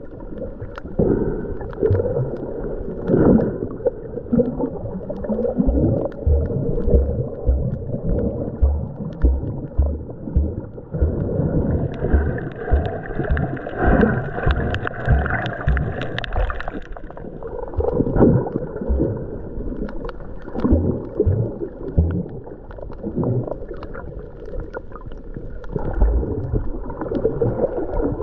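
Muffled water sound of snorkeling, gurgling and sloshing, with frequent low thumps; it brightens for a few seconds around the middle.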